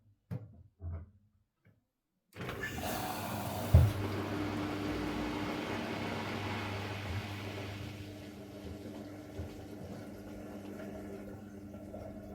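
Siemens Siwamat IQ 716 washing machine taking in water: a rush of water with a steady hum starts abruptly a couple of seconds in, with a single sharp knock just after, then settles to a quieter steady flow.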